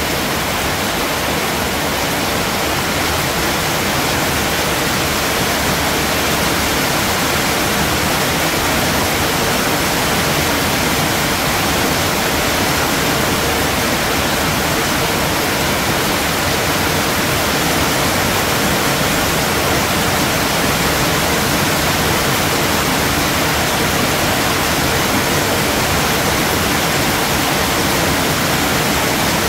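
Steady rain: a dense, even hiss that does not let up.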